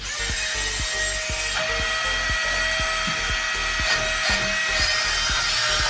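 Small electric suction fan of an Epoch Air wall-climbing RC toy car running, a steady whirring hiss with a high whine held throughout, as it holds the car to glass. Background music with a steady beat plays underneath.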